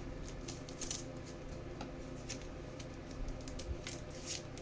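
Faint, irregular small clicks and rustles of trading cards being handled and slid one behind another, over a steady low hum.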